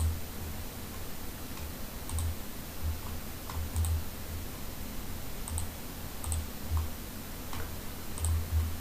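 Computer mouse clicking irregularly, roughly eight clicks, picking items on screen, with soft low thumps in between.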